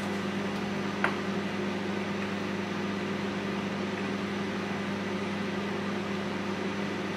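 Microwave oven running while heating a jacket potato: a steady hum, with one light click about a second in.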